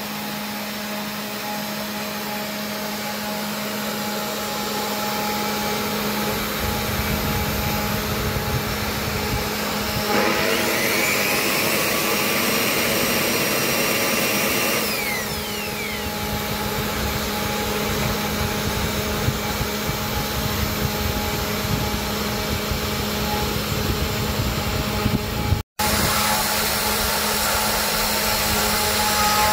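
Hobby CNC router's spindle motor running steadily as the bit carves a relief into a wooden block, with cutting noise over the motor's steady hum. A louder, higher whine comes in for about five seconds around the middle, and the sound breaks off for an instant near the end.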